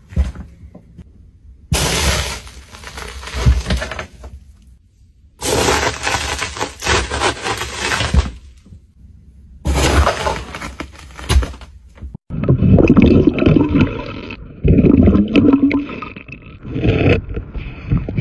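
Plastic toothpaste tubes crushed underfoot by a sneaker, in three long noisy bursts of crackling and squelching. After a sudden cut about twelve seconds in, a louder run of cracking and scraping follows.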